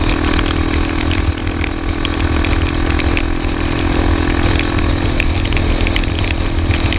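Single-cylinder dual-sport motorcycle engine running at a steady cruising speed, heard from the rider's seat, with wind rumble on the microphone and the hiss of tyres on a wet road.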